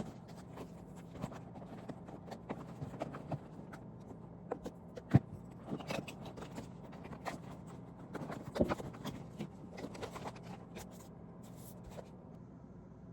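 Scattered light clicks and knocks of objects being handled, with one sharper knock about five seconds in, over a low steady hum.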